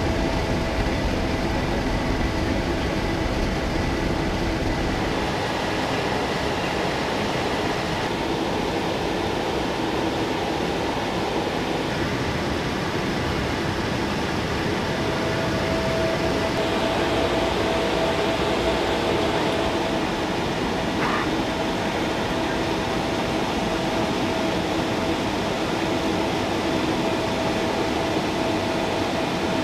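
Steady flight-deck noise of a C-17 Globemaster III in cruise: the even rush of air and engine drone, with a faint steady hum over it.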